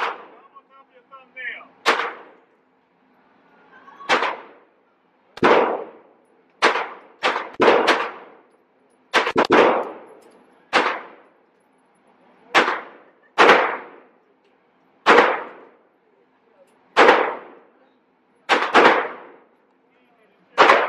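Gunshots at a shooting range: about twenty shots at an uneven pace, sometimes two or three in quick succession, each sharp crack followed by a short echoing tail.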